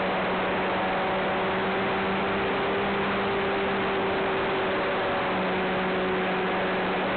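Cessna 182 light aircraft's piston engine and propeller droning steadily under a hiss of wind and air noise, as picked up by an on-board camera. The engine note dips slightly about five seconds in.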